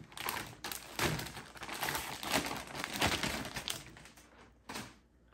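Clear plastic bag crinkling and rustling as black slime is pulled out of it, in irregular crackles that stop about four seconds in.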